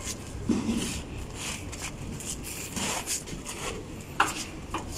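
Scuffing and rubbing as an air-conditioner outdoor unit is shifted by hand on its stand, with two short sharp clicks near the end.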